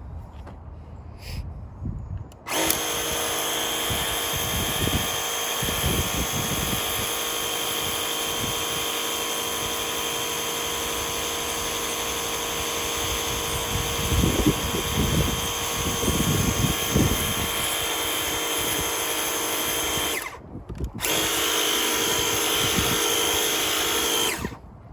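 DeWalt 20V Max cordless power cleaner's electric pump motor running with a steady whine while it sprays a water jet onto a concrete curb. It starts about two and a half seconds in, stops briefly near 20 seconds, then runs again until just before the end.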